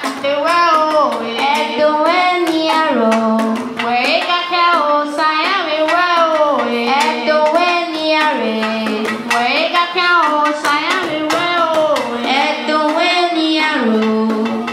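Music for a traditional Edo dance: a singer's melodic line, with notes gliding up and down and held, over percussion beating a steady rhythm.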